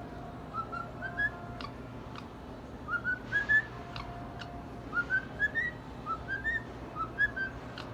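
Cockatiel whistling: about five short phrases, each a quick run of four or five notes stepping upward in pitch, with a few faint clicks between them.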